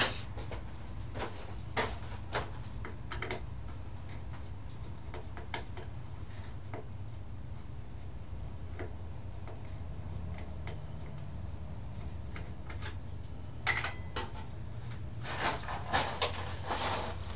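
Hand tools and metal parts clinking and clicking as a 1989 Yamaha YZ80 dirt bike is taken apart. The knocks are scattered at first and come in a busier run near the end, over a steady low hum.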